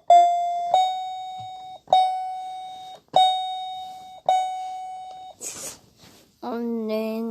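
A clear chime-like electronic tone sounded five times, roughly one a second, each note starting sharply and fading before it cuts off. Near the end a voice starts humming or singing.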